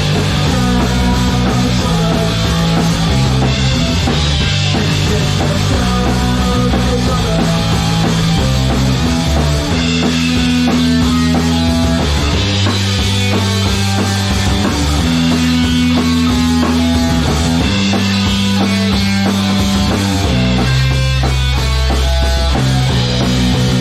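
Loud punk rock played on drum kit, electric guitar and bass guitar, with the bass moving between held notes every second or two.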